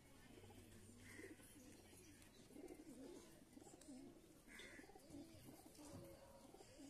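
Faint, continuous cooing of several domestic pigeons, with overlapping wavering coos.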